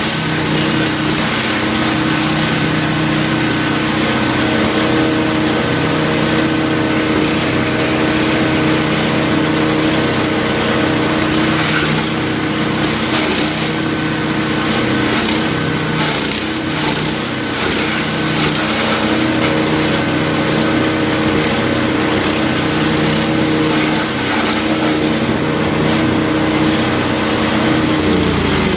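A 13 hp wood chipper's engine running steadily, with bursts of crackling and snapping as wood is fed through and chipped, mostly in the second half. Near the end the engine pitch drops.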